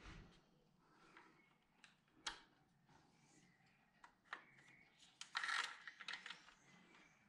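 Faint metallic clicks and taps of hand tools on a BMW N52 engine's VANOS unit and timing chain as the exhaust-side VANOS is tightened. The clicks are scattered, with a brief cluster of rapid clicks about five and a half seconds in.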